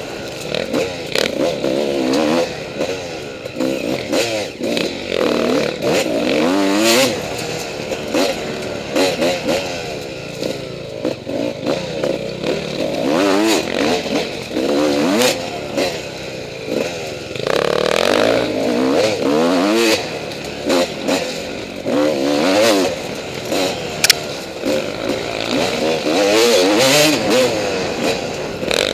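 Two-stroke dirt bike engine revving up and falling back over and over as it is ridden hard along a rough trail, with clatter and knocks from the bike over bumps.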